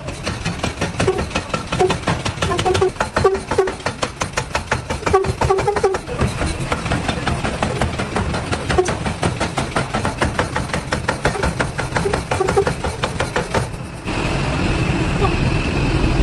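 Machinery rattling rapidly, many strikes a second, then switching about 14 seconds in to a steady running sound with a high whine.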